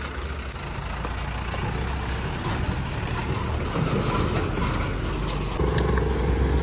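Diesel engine of an Ashok Leyland Ecomet goods truck pulling away on a test climb, running steadily and growing louder, mixed with a nearby motorcycle engine. A steady higher engine note joins in about five and a half seconds in.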